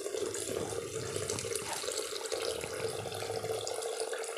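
A steady stream of liquid pouring from a plastic measuring jug into a clear plastic container, trickling and splashing without a break.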